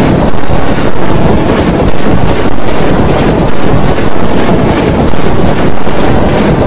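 Very loud, heavily distorted and clipped noise with no clear tone or voice, swelling and easing about once a second.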